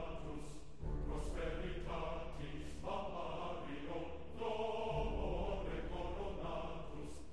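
Music with a choir singing slow, held chords over a steady low bass.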